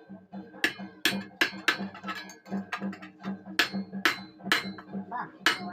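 Hammer striking iron: about eight sharp, ringing metal blows in uneven groups, with a steady low pulsing underneath.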